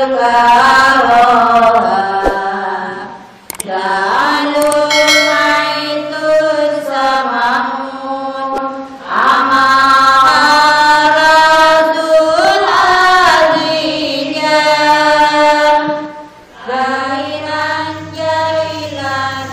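Intro music: a solo voice singing long melismatic phrases with held notes that glide and ornament, over a low sustained drone. There are four phrases, with short breaks between them.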